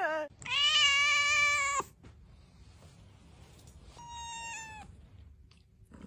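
Cat meowing: one long, drawn-out meow, then a shorter, fainter meow about four seconds in.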